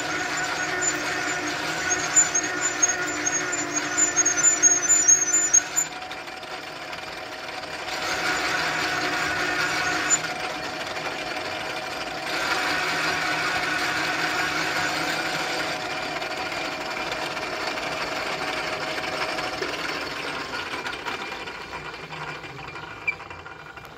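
Metal lathe running, its chuck spinning the workpiece, a carburetor adaptor being turned: a steady machine hum and whine with stretches of louder cutting noise, dying away over the last few seconds.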